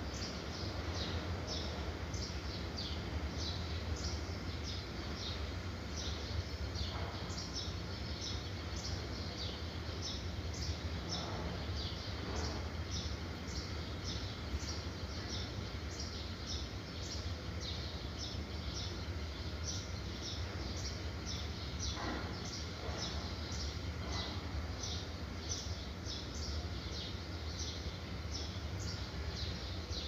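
Marker squeaking on a whiteboard in quick short strokes, about two a second, over a steady low hum.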